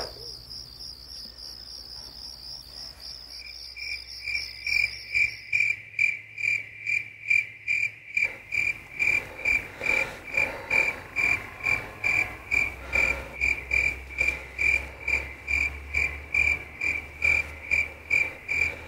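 Crickets chirping: a high, fast trill that stops about five seconds in, and a louder, evenly spaced chirp, about three a second, that starts about four seconds in and keeps going.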